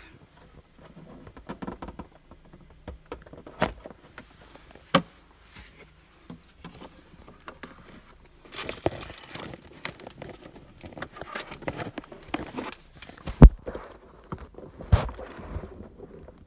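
Plastic glove box of a 2015 Toyota Camry being pried apart into its two halves: rustling handling noise with several sharp plastic snaps and clicks as the clips let go, the loudest snap about three seconds before the end.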